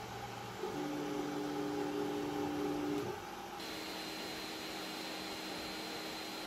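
Ender 3 S1 3D printer printing: its fans give a steady hum while the stepper motors whine at a few held pitches as the print head moves, the whine shifting about a second in and stopping about three seconds in. About three and a half seconds in the sound changes abruptly to a steadier hiss with a faint high tone.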